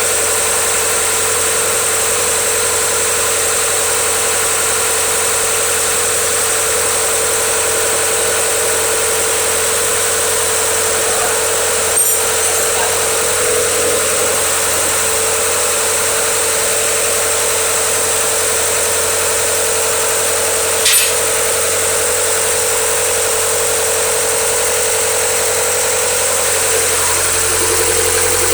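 Barge's lighting generator engine running steadily with an even drone. Two short clicks are heard, one about 12 seconds in and one about 21 seconds in.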